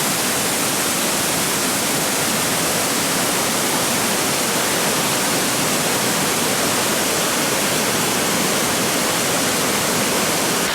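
Fast-flowing mountain stream rushing steadily, an even water noise with no breaks.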